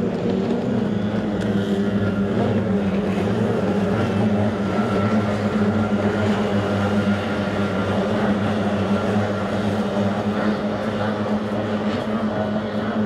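Kyotei racing boats' two-stroke outboard engines running at racing speed, heard across the water as a loud, steady drone.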